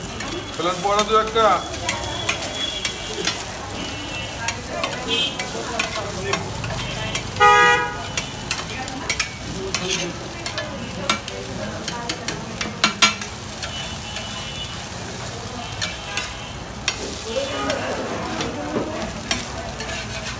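Eggs sizzling on a large flat iron street-stall griddle, with metal spatula and scraper clicking, scraping and chopping against the iron. About seven and a half seconds in, a vehicle horn honks once briefly, the loudest sound.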